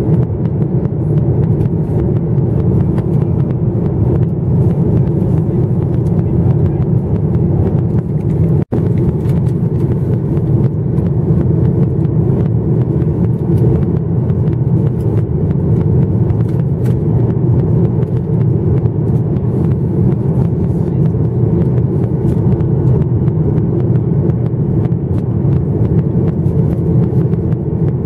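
Steady cabin noise inside a Boeing 737-900ER in descent: its CFM56-7B engines and the airflow over the fuselage make a low, even rumble. The sound cuts out for an instant about nine seconds in.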